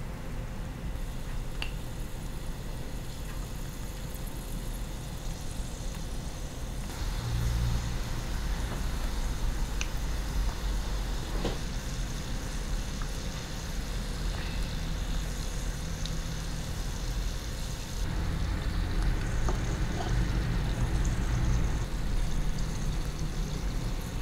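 Hot oil bubbling and sizzling around small pieces of chicken deep-frying in a miniature ceramic pot, over a low steady rumble. The sizzle grows louder about seven seconds in, and a few faint ticks sound.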